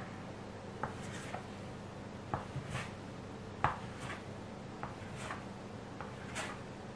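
Plastic dough scraper pressing down through soft bread dough and tapping the wooden tabletop with each cut, a string of light irregular clicks with the sharpest about three and a half seconds in.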